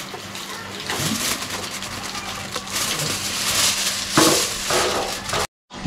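Aluminium foil crinkling and rustling as hands press and smooth it over the top of a biriyani pot to seal it, with a few sharper crumples. The sound breaks off abruptly near the end.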